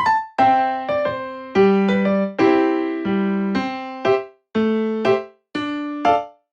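Background music: electric piano playing light chords in a steady rhythm, each chord struck and dying away.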